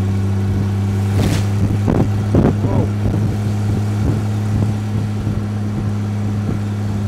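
A 2-litre Triumph Vitesse straight-six engine running at a steady cruise, heard from the open cockpit of a roadster. A brief hiss comes about a second in.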